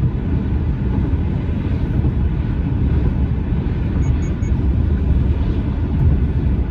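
Car driving, heard from inside the cabin: a steady low road and engine rumble. Three quick faint beeps about four seconds in.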